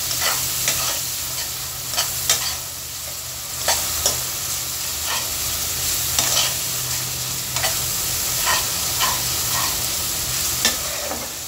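Onion and spice masala sizzling in oil in a pan while a spatula stirs and scrapes through it, with irregular scrapes against the pan over a steady sizzle. The masala is being fried down with a splash of water until the oil separates.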